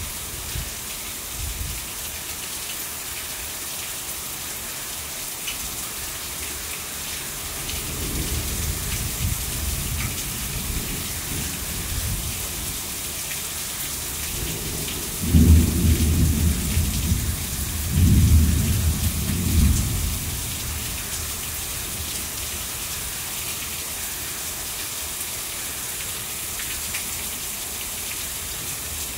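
Heavy rain pouring steadily. Low thunder rumbles in from about eight seconds in, then comes two loudest rolls around the middle before fading back to the rain.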